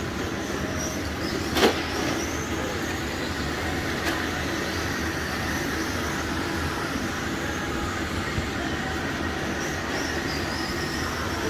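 Radio-controlled street stock race cars running on an indoor dirt oval: faint high electric-motor whines rise and fall as the cars pass, over a steady rumble of hall noise. A sharp knock stands out about a second and a half in, with smaller clicks later.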